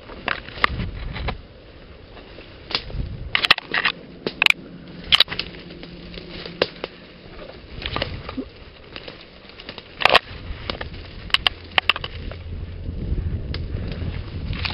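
Twigs and branches snapping and leaves rustling as someone pushes through dense undergrowth by hand, in a string of sharp irregular cracks.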